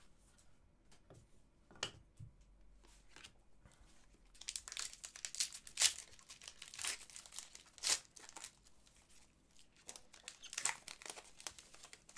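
Wrapper of an Upper Deck Artifacts hockey card pack crinkling and tearing as it is opened by hand, in two spells of crackling, the first starting about four seconds in and a shorter one near the end, after a few quiet seconds with a couple of faint taps.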